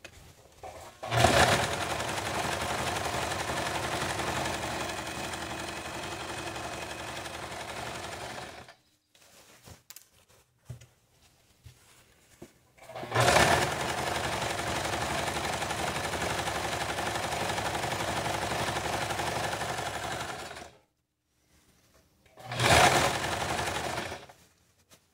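Elgin Prátika electric sewing machine stitching through fabric in three runs: two of about seven seconds each with a pause between, then a short burst near the end. Each run starts with a sharp jolt, and there are a few light clicks in the pauses.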